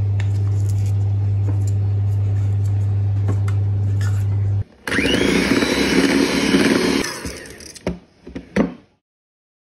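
A steady low hum runs for the first four or so seconds and stops abruptly. An electric hand mixer then starts with a rising whine and beats buttercream for about two seconds, dies away, and a few light knocks follow.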